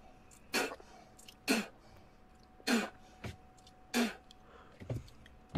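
A man spitting repeatedly: five short, sharp spits about a second apart.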